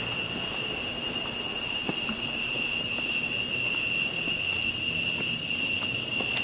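Steady, high-pitched insect chorus, several shrill tones held at once and growing slightly louder, with a few faint footsteps on stone steps.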